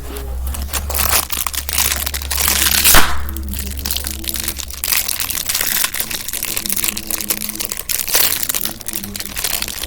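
Plastic crinkling and crackling as packaging is handled close to the microphone, with a dense run of irregular rustles and a loudest crackle about three seconds in.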